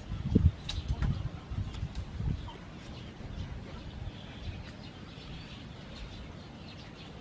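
Chickens clucking faintly, with a few low thumps in the first couple of seconds.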